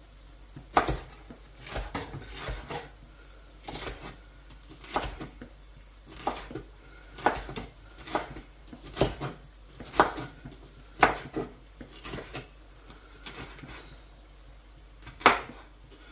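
Knife knocking on a chopping board while vegetables are sliced into strips, about one knock a second, the loudest near the end.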